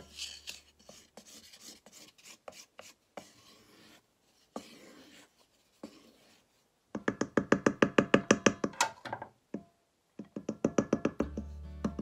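Wooden spoon stirring and beating cake batter in a stainless steel bowl: light scattered knocks and scrapes, then a loud run of rapid strokes against the bowl, about ten a second, a little past the middle, and a shorter run after it. Background music comes back near the end.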